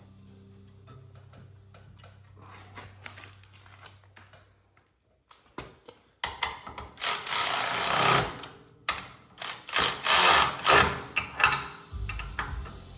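A power tool runs in several loud short bursts, the longest about a second, as it drives in the exhaust-hanger bolts. Before it comes faint background music, then a moment of near silence.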